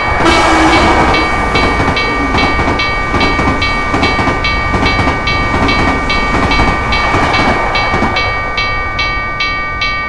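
Railroad crossing bell ringing steadily at about three strokes a second. A passing freight train's rumble and rail noise come in suddenly at the start and die away about eight seconds in.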